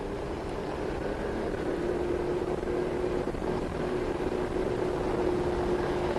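A vehicle engine running steadily, a constant hum that sinks slightly lower in pitch over the few seconds.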